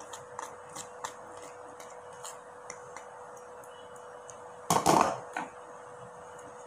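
A plastic plate tapping and clicking against a bowl as diced luncheon meat is tipped into beaten egg, with a louder clatter about five seconds in. A steady faint hum runs underneath.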